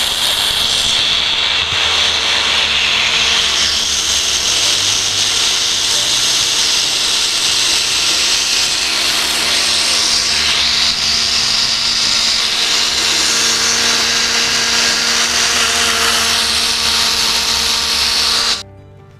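Small personal blender running steadily at full speed, crushing ice and orange into juice, with a steady motor hum under the whirr. The motor stops abruptly near the end.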